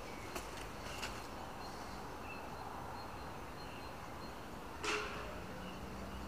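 Outdoor ambience with a steady low rumble. A few faint short clicks come in the first second, and one louder, sharper sound just before five seconds in.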